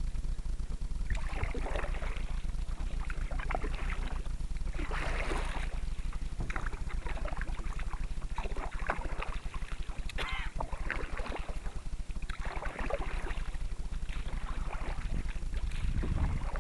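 Canoe paddle strokes in water: a swish and drip of water about every two seconds, over a steady low rumble.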